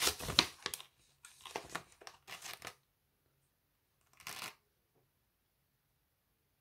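Plastic hamster-food bag crinkling and rustling as it is handled and turned over: a run of rustles in the first three seconds, then one short rustle about four seconds in.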